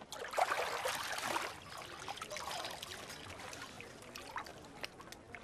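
Water pouring and trickling from a wet cloth as a body is washed. It is loudest in about the first second and a half, then goes on as softer dribbling with small drips and clicks.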